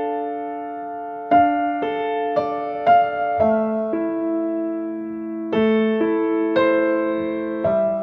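Background music: a slow, gentle keyboard melody of held notes, each struck and left to ring, with a new note every half second or so and a longer held note around the middle.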